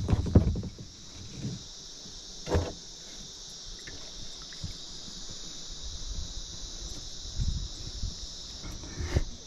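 A steady, high chorus of insects such as crickets, with handling noises over it: loud rustling and bumps right at the start, a sharp knock a couple of seconds in, and a few softer bumps near the end.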